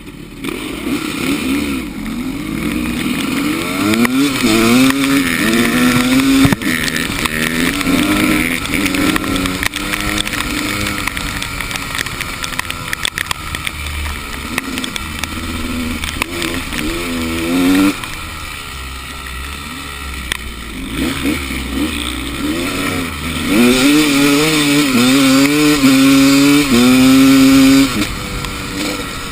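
Enduro motorcycle engine revving up and down over and over as the bike is ridden, its pitch climbing and dropping with each opening and closing of the throttle. It is loudest in a long run of revving near the end.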